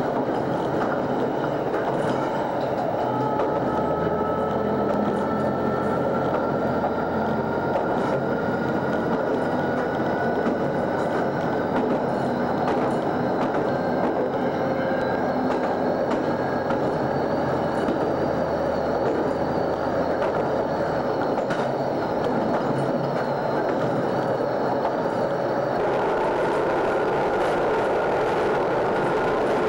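Diesel railcar running on jointed track, heard from the cab: steady running noise with wheel clicks over the rail joints. From a few seconds in, a whine climbs slowly in pitch as the train gathers speed, and a low hum runs under it until about two-thirds of the way through.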